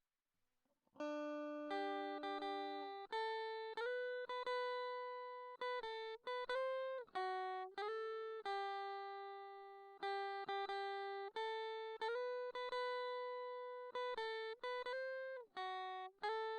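Background music: a melody of single plucked guitar notes, each struck and left to fade, starting about a second in.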